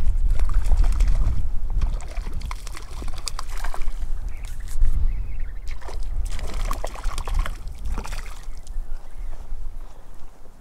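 A hooked trout splashing at the surface in shallow water as it is played in on a tenkara rod. Wind rumbles on the microphone for the first couple of seconds.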